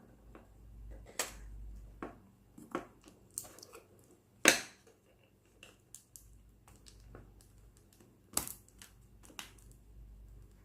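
Plastic parts of a hair dryer being handled as it is taken apart: scattered clicks and knocks, the sharpest about four and a half seconds in and another about eight and a half seconds in, over a low handling rumble.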